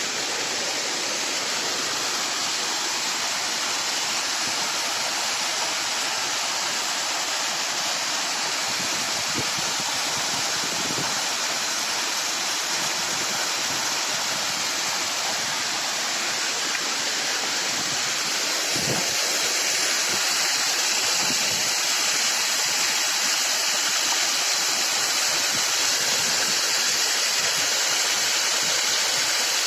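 Waterfall: a steady rush of falling water, growing a little louder about two-thirds of the way in.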